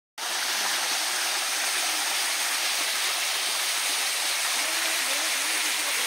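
Small waterfall in a mountain stream, water cascading over rock slabs into a shallow pool with a steady rushing sound.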